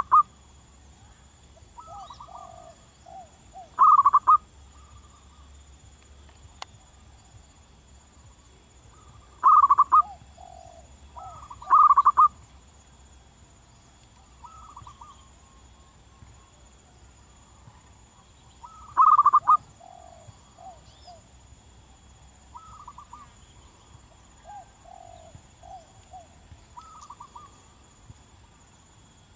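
Zebra doves (perkutut) cooing. Five loud, short staccato cooing phrases come every few seconds, and fainter, lower cooing phrases fill the gaps between them. A faint steady high-pitched tone runs underneath.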